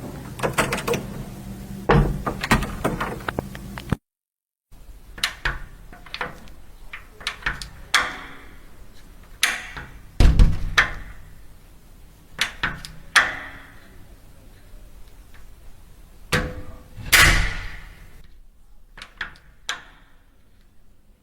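A run of separate door sound effects: clicks and knocks of handles and latches as doors open and close, with two heavier thuds, one about halfway through and one later. A moment of dead silence about four seconds in splits one effect from the next.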